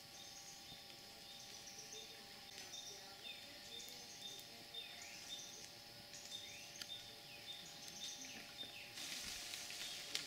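Faint natural ambience of high, repeated chirps, about two a second, mixed with short swooping calls and a steady faint hum; a hissing swell comes in near the end.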